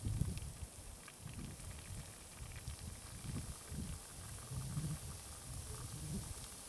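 Krot drain cleaner fizzing and crackling as it reacts inside a car heater core, with irregular low rumbles underneath.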